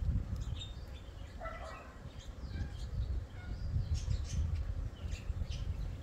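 Several garden birds chirping and calling in short scattered notes, with one fuller call about a second and a half in, over a low uneven rumble.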